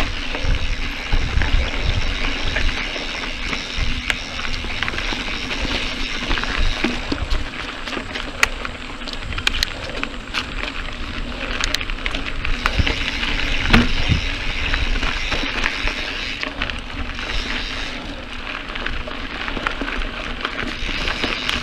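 Mountain bike rolling along a dirt singletrack: tyres crunching and crackling over loose gravel and grit, with scattered sharp clicks and rattles from the bike, and a gusty low rumble of wind on the microphone.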